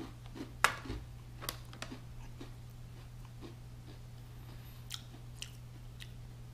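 A person biting into and chewing a crunchy candy corn Oreo sandwich cookie. One sharp crunch comes just under a second in, followed by scattered softer crunches as he chews.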